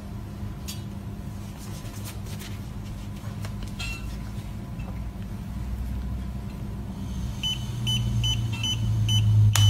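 Handheld breathalyser beeping while a breath sample is blown into it: a run of short high beeps, about three a second, starting in the last couple of seconds, then one longer tone. A steady low hum runs underneath.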